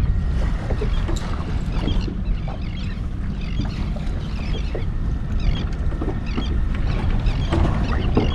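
Water slapping and lapping against the hull of a small boat drifting with its outboard off, with wind on the microphone. Scattered faint short high chirps come and go over it.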